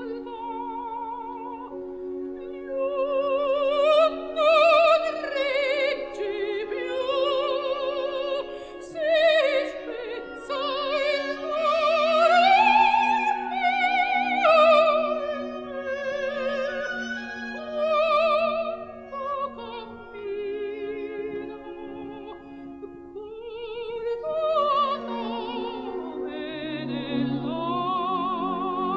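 Background music: an operatic voice singing long, wavering notes with vibrato over a sustained accompaniment.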